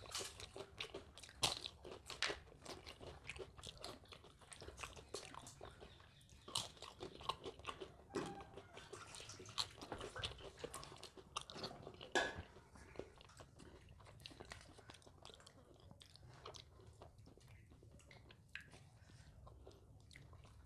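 Close-up crunching and chewing of fried papad, with frequent crisp cracks for about the first twelve seconds, then softer, sparser chewing.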